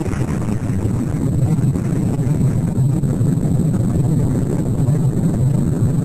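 Loud, steady low rumble of a nuclear explosion's mushroom cloud, with no distinct blasts or breaks.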